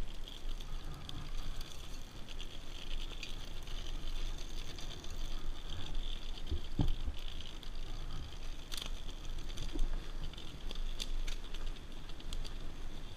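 Dirt bike ridden slowly over a pine-needle forest floor: a low rumble with rattling and hiss, and a few sharp knocks about halfway through.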